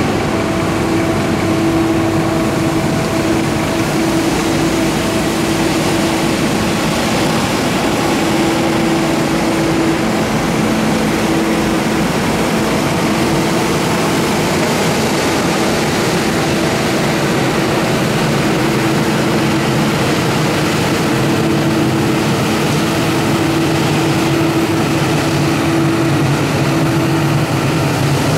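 Scania P270 street sweeper truck at work: diesel engine and sweeping machinery running with a steady hum at one pitch, and the rotating side brush scrubbing gravel and grit off the road.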